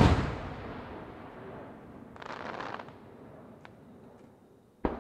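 Aerial fireworks shell bursting with a loud boom, its echo rumbling away over the next few seconds; a second sharp boom near the end.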